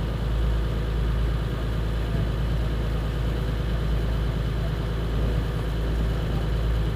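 Rigid inflatable boat's engine running steadily as the boat cruises slowly, a constant low drone.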